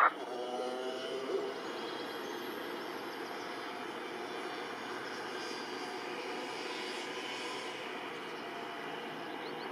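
Airbus A320neo airliner on final approach, heard from afar: a steady engine noise that holds even throughout.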